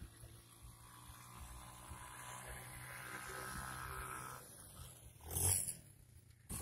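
Quad bike engine running as the ATV drives past, its steady drone growing louder as it comes close and fading as it moves away. A brief loud rush of noise follows about five seconds in.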